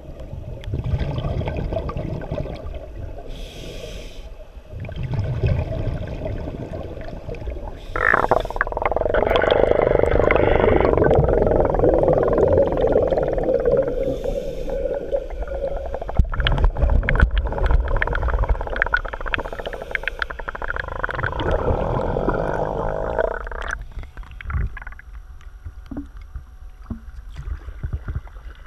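Muffled underwater noise of water moving past a GoPro Hero3's waterproof housing, loudest in the middle with one falling squeal about eight seconds in. It turns quieter with light ticks near the end as the camera comes up to the surface.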